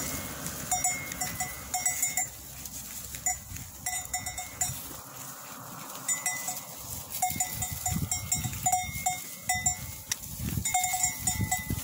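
Livestock bells worn by a grazing flock clanking in irregular runs of quick strokes, fading for a couple of seconds near the middle before picking up again.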